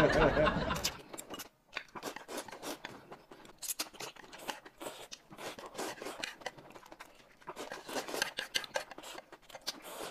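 Noodles being slurped and chewed, heard as a quick, irregular run of small wet clicks and smacks.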